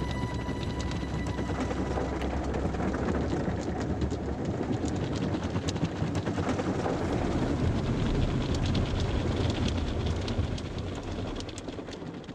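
A dense, steady wash of noise, heaviest in the low end, with scattered faint crackles on top, fading out over the last couple of seconds.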